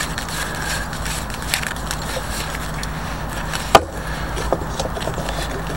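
Fire Maple FMS-300T stove being screwed onto a gas canister by gloved hands: small handling clicks and scrapes of metal over a steady background hiss, with one sharp click a little under four seconds in.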